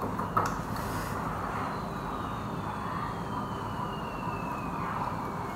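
Steady background noise with a faint whine that falls slowly in pitch over several seconds, and a couple of light knocks about half a second and a second in.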